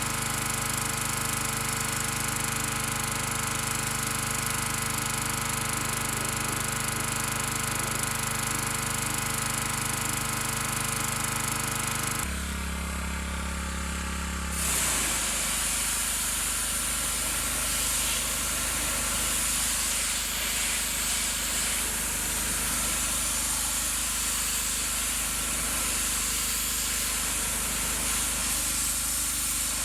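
Gas pressure washer's Briggs & Stratton engine running steadily, with the hiss of the high-pressure water spray. About twelve seconds in the sound changes abruptly. From then on the spray hiss is stronger and the engine is lower.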